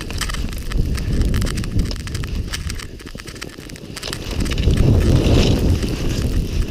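Touring skis sliding and crunching through fresh powder with pole plants, over a rumble of wind on the microphone; it grows louder about two thirds of the way through.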